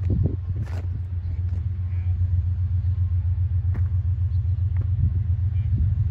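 Low, steady rumble of a distant diesel locomotive approaching on the line, slowly getting louder.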